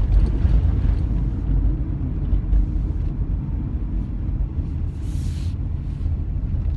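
Steady low road and engine rumble inside a moving car's cabin, with a brief hiss about five seconds in.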